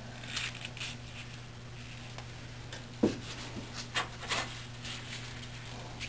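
Handling noises from a wooden hive top bar and a metal pot of melted wax: a few light clicks and scrapes, with one sharper knock about three seconds in, over a steady low hum.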